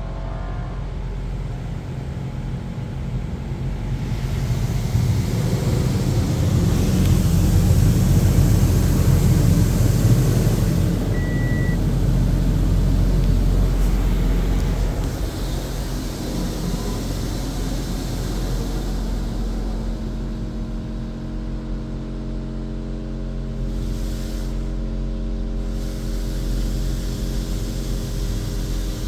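Automatic car wash spraying water and foam over a car, heard from inside the cabin: a steady rush of water over a low hum, swelling louder for several seconds in the middle and then easing off.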